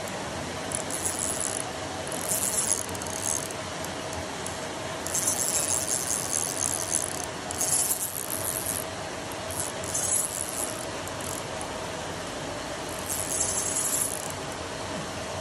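Steady outdoor hiss with a faint constant hum, broken every few seconds by short, high-pitched, buzzy trills lasting up to about a second and a half.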